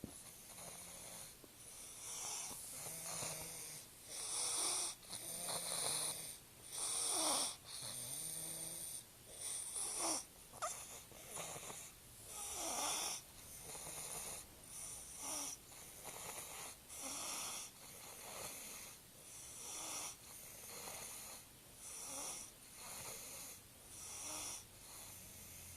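A sleeping young boy snoring, with noisy, wheezy breaths in and out repeating about once a second.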